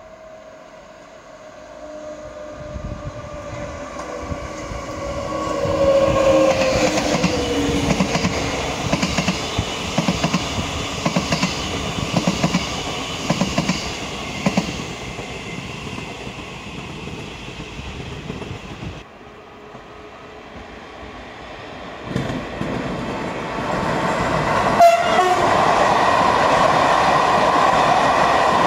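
Blue double-deck electric commuter train passing at speed: a falling tone as it comes by, then wheels clicking over rail joints roughly once a second. After an abrupt change, a second train of passenger coaches rolls past with a steady running noise that grows louder, with one sharp click along the way.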